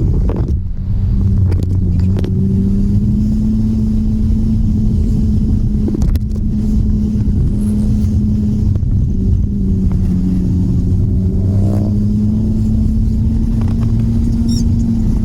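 An engine running steadily at an even speed, with a few sharp knocks or clanks over it.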